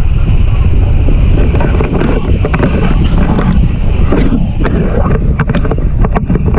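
Heavy wind buffeting an action camera's microphone during tandem paraglider flight: a loud, steady, low rumble, with a few short sharp taps in the second half.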